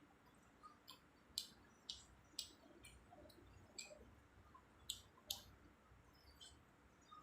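Close-miked eating: irregular, sharp wet mouth clicks and smacks of chewing soft food.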